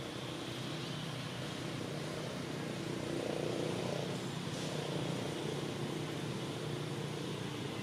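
Steady low engine hum of motor traffic, swelling slightly about three seconds in.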